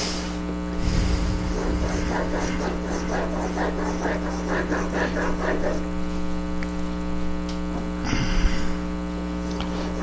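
Steady electrical mains hum, with a low knock about a second in and another near the end.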